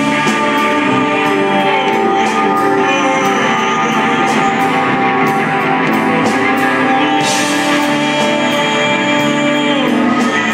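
Live rock band playing: electric guitar, drums and keyboard, with a man singing into the microphone over them.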